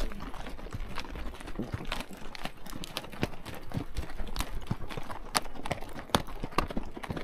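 Horse hooves clip-clopping, a run of uneven sharp knocks, with a steady low rumble underneath.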